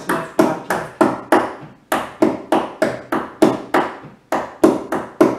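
Hands slapping a tabletop in the bachata drum pattern, alternating right and left. About three sharp slaps a second, with a short break every two seconds or so as the pattern repeats.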